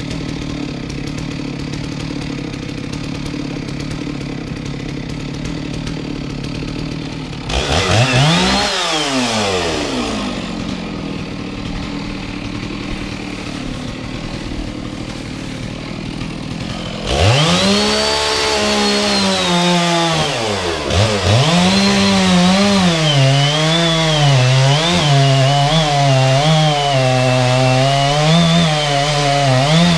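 Two-stroke chainsaw idling, revved up briefly once about eight seconds in and then dropping back to idle. From about seventeen seconds it runs at high revs, louder, its pitch repeatedly dipping and recovering as the chain bites into the wood of a eucalyptus trunk.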